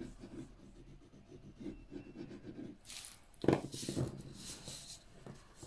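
Tape runner drawn along a cardstock strip, a soft rubbing, then cardstock panels handled and slid over a craft mat, with a couple of sharper knocks about three and a half seconds in.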